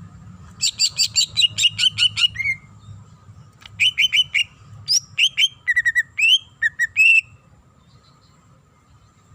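Cucak ijo (green leafbird) singing: a rapid run of about a dozen sharp, repeated whistled notes lasting about two seconds, then after a short pause a second phrase of varied whistles and chirps that stops about two seconds before the end.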